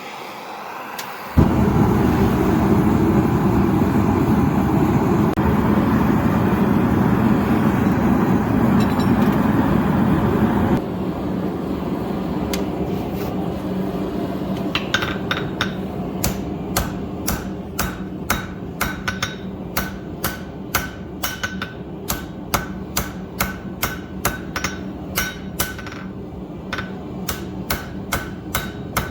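A forge comes on suddenly about a second in and runs loudly and steadily, dropping to a quieter steady rush about ten seconds in. From about fifteen seconds in, a hammer strikes a bar of 5160 spring steel on the anvil at about two blows a second, each blow ringing, over the steady noise of the forge.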